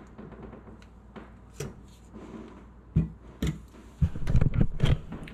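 Kitchen handling noise: a few sharp clicks and knocks, then a louder burst of clatter and rubbing about four seconds in, as a metal jar lifter is set down on a towel and the camera is picked up. A low steady hum runs underneath.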